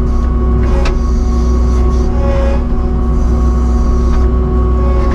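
Kubota SVL75-2 compact track loader's diesel engine running steadily, with a deep low rumble and a constant pitch and no change in speed, and a brief click about a second in.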